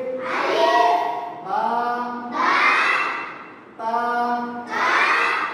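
Children chanting a recitation together in a sing-song rhythm, alternating about every second with a single voice leading in drawn-out, gliding phrases, call-and-response style.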